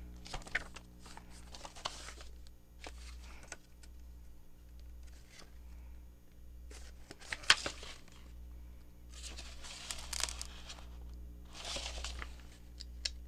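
Paper pages of a book signature being leafed through and handled, rustling in several short spells, with one sharp click about seven and a half seconds in.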